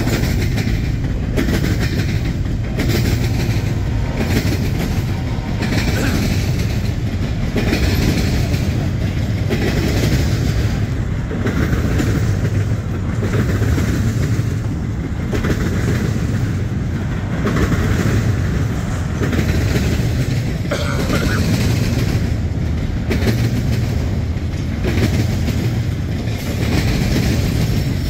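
Double-stack container freight train passing close by: a steady heavy rumble from the well cars rolling past, with recurring clacks of the wheels over the rail joints.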